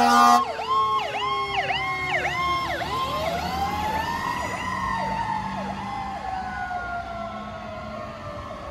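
Fire truck air horn ending about half a second in, then an electronic siren yelping rapidly. About three seconds in, a mechanical siren winds up and then slowly winds down, all fading as the 2018 Pierce Arrow XT aerial ladder truck pulls away.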